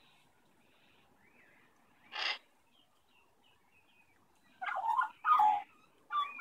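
Young Australian magpie calling close by. First there are faint chirps, then a single short harsh call about two seconds in, and near the end two loud, wavering, whiny squawks that slide up and down in pitch.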